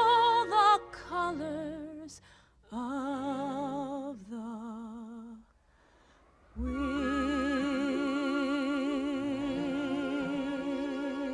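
Female voice singing the closing phrase of a film ballad with wide vibrato over soft backing music. A short falling run opens it, sustained notes follow, a brief near-silent break comes about five and a half seconds in, and then one long final held note starts about a second later.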